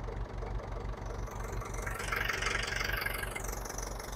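Ferguson TEF-20 tractor's four-cylinder diesel engine idling with a steady low beat. A brief hiss comes in about two seconds in and lasts just over a second.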